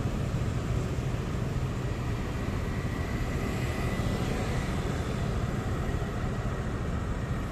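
Steady city street traffic noise: a low rumble of motorbikes and cars passing on a wide road, with no sharp knocks or bangs.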